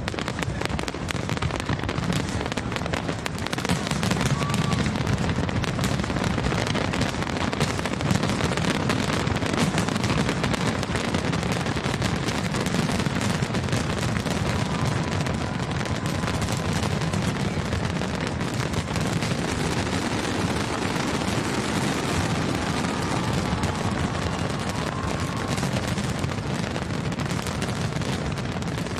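Large fireworks display: a dense, unbroken barrage of bangs and crackling.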